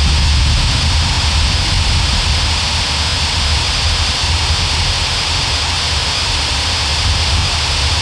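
GhostTube spirit box app putting out a steady hiss of static, with a low rumble underneath.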